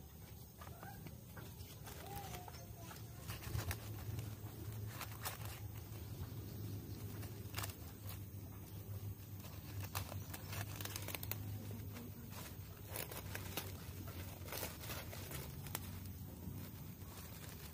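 A clear plastic bag crinkling and rustling as hands handle and tie it, in many short, irregular crackles.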